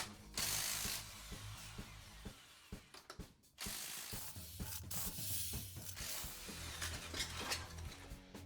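Several short rattling bursts from an impact driver undoing the rear wheel bolts of a Mercedes Vito van, over faint background music.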